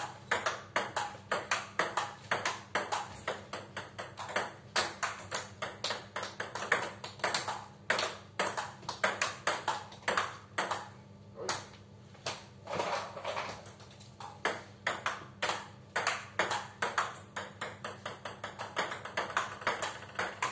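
Table tennis ball knocked back and forth in a fast rally: sharp clicks of the ball off rubber-faced paddles alternating with its bounces on the table, several a second, with a brief pause about eleven seconds in.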